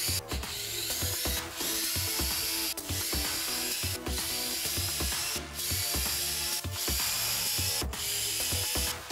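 Electric screwdriver running as it backs screws out of a subwoofer's metal amplifier panel, with short pauses between screws, over background music.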